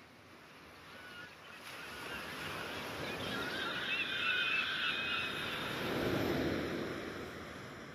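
A swelling rush of noise with a few warbling bird calls in the middle, the rush peaking near the end and then easing off.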